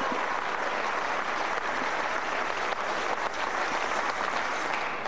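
Arena crowd applauding a won point in a table tennis match, a dense clapping that dies away near the end.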